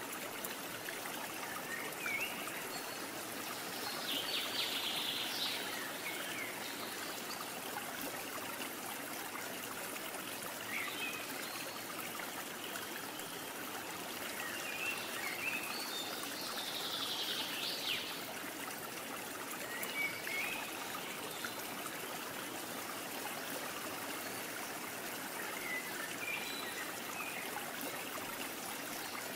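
Steady rushing of flowing water, like a stream, with a few faint short high chirps now and then.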